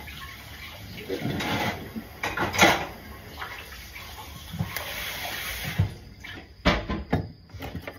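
A cooked Japanese mitten crab being pulled apart by hand: wet crackling and snapping of shell and legs, with two sharp cracks near the end.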